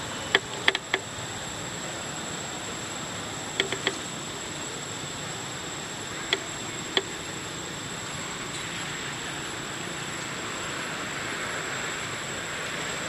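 Forest background: a steady hiss with a constant high thin whine, broken by a few short sharp clicks. Three clicks come near the start, three more around four seconds in, and single ones around six and seven seconds.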